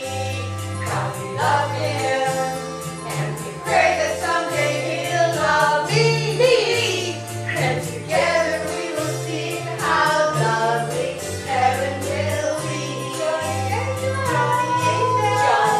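Stage musical number: women's voices singing together over music with a bass line that steps between notes and a steady percussive beat.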